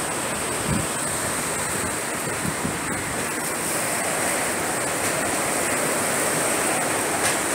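Hurricane winds blowing hard and steadily, a continuous rushing noise with gusts buffeting the microphone.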